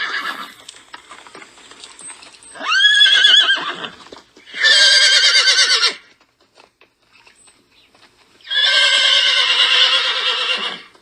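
Horse whinnying: three separate whinnies with a quavering pitch, the last and longest about two seconds, after the tail end of one at the very start.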